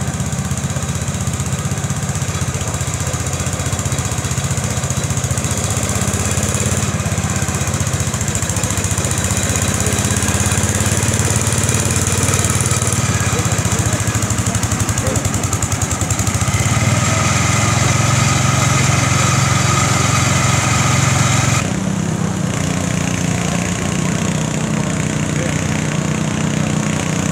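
Garden tractor engine running steadily under load as it pulls a weight-transfer sled. The sound grows a little louder toward the twenty-second mark, then changes abruptly to another tractor engine running.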